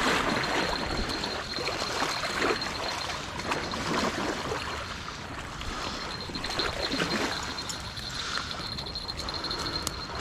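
Choppy river water washing and splashing against a muddy shore, loudest at the start where a hooked bream thrashes at the surface beside the landing net.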